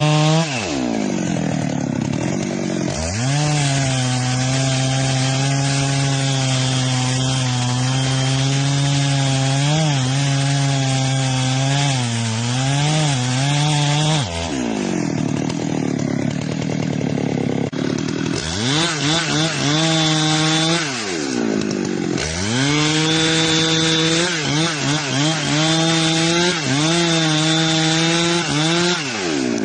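Chainsaw cutting wood: the engine revs up to full speed and holds there under load, drops back to idle between cuts about halfway through, then revs up and cuts again.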